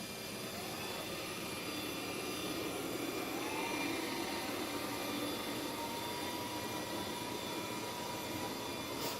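Roborock robot vacuum running, with a steady whirring hum. About three seconds in, a whine rises and then holds at a steady pitch. A short click comes near the end.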